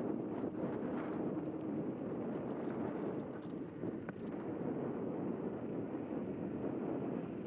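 Steady wind rushing over the microphone, mixed with the rolling rumble of a Zero 10x electric scooter travelling along a paved path, with a few small ticks and rattles.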